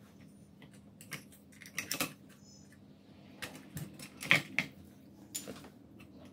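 Irregular clicks and light knocks of hands handling an induction cooker's circuit board and its parts, the board being turned over in its plastic case. The loudest knock comes a little past the middle.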